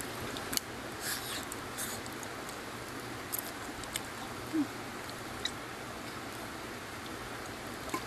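Steady rush of a valley stream, with a few light clicks and taps scattered through it.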